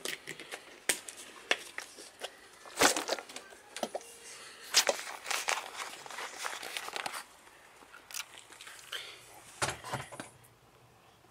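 Clear plastic sheeting crinkling and rustling as it is handled and pulled aside, in irregular crackly bursts that die away near the end.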